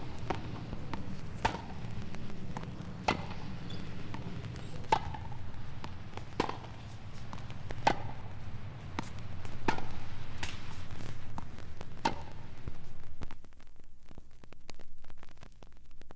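Sharp knocks or chopping blows about every second and a half, with lighter clicks between, over a low steady rumble that drops away near the end.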